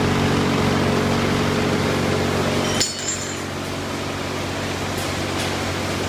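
Shrimp color-sorting machine running with a steady electric hum. A single sharp metallic click comes about three seconds in, after which the running sound is a little quieter, and two faint clicks follow later.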